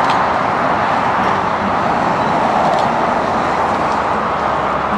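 Steady roar of highway traffic: a dense, even wash of tyre and engine noise with no single vehicle standing out.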